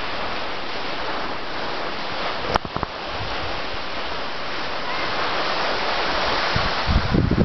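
Skis sliding over packed snow: a steady hiss, with a single sharp click about two and a half seconds in. Wind buffets the microphone near the end.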